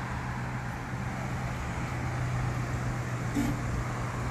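Steady low engine hum with street traffic noise.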